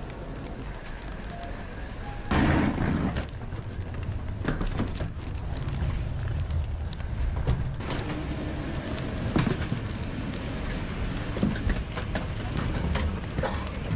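Airliner cabin ambience: a steady low rumble with scattered knocks and clicks, and a loud rush of noise about two seconds in.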